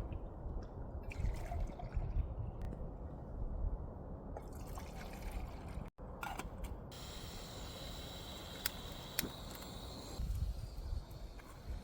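Liquid pouring or trickling for about three seconds, starting about seven seconds in, with two sharp ticks, over a steady low rumble.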